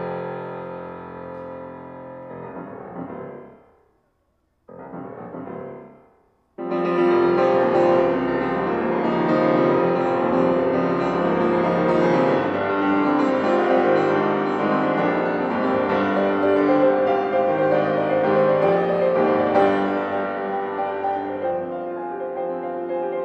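Yamaha grand piano: a held chord dies away and cuts to silence, a short soft chord follows, and then, about seven seconds in, the piano comes in suddenly with loud, dense chordal playing that runs on.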